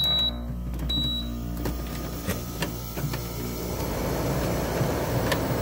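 Portable dehumidifier switched on after about two days unused: two short high beeps from its control panel, then a steady low motor hum, a few light clicks, and the rush of its fan air growing stronger over the last second or two.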